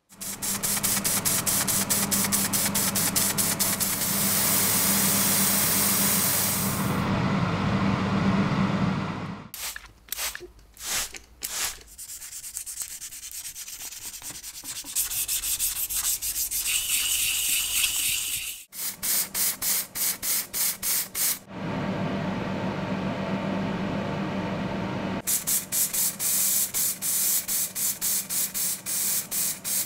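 Wet sanding by hand of a tin toy submarine's primed sheet-metal hull: abrasive paper scraping back and forth. It comes in runs, a steady stretch at first and quick, rhythmic strokes later, with a quieter, broken-up passage in between.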